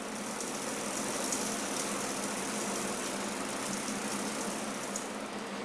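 Bicycle drivetrain turning while the right pedal is threaded into the crank arm with a pedal wrench: a steady hiss of rapid fine ticks from the chain and freewheel. It stops about five and a half seconds in.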